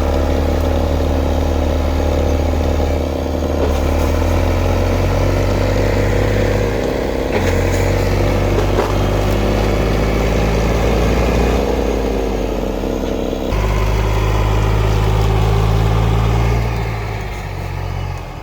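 An engine running steadily, its speed shifting a few times before it eases off near the end.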